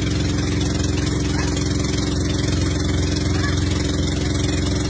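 Outrigger boat's engine running steadily at an even pitch.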